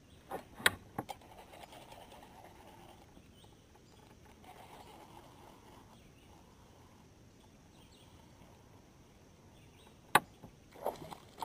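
Fishing reel being worked on a cast and retrieve: a few sharp clicks about half a second to a second in, faint stretches of reel whir, then another sharp click and a quick run of clicks near the end, over quiet outdoor background.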